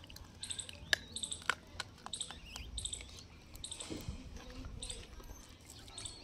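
Birds chirping in short, repeated calls, with a few sharp clicks about a second in.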